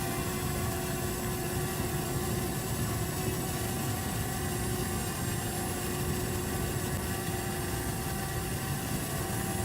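Hubsan ZINO Mini Pro quadcopter hovering: a steady propeller hum with a constant whine from its motors.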